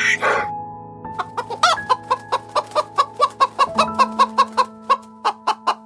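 Domestic chickens clucking in a quick run of short, even clucks, about four or five a second, starting about a second in, over soft piano music. A short breathy hiss is heard at the very start.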